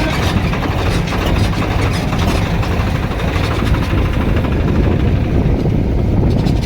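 Heavy diesel engine of earthmoving machinery running steadily under work.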